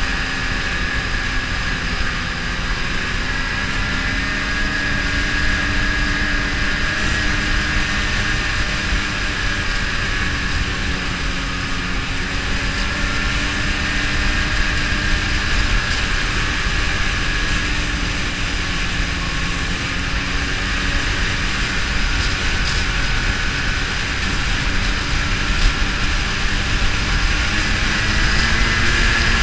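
Ski-Doo snowmobile engine running steadily as the sled cruises along a trail, its drone wavering slightly in pitch and growing a little louder near the end.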